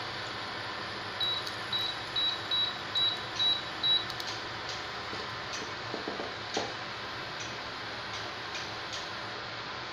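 Induction cooktop's control panel beeping seven times in quick succession, about two beeps a second, as its power is set for heating frying oil. Under it the cooktop's cooling fan runs steadily, and a few faint clicks come later.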